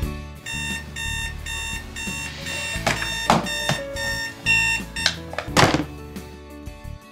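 Digital alarm clock beeping in quick, evenly repeated bursts, which stop a little under five seconds in. Two short swishing noises, the louder one near the end, over background music.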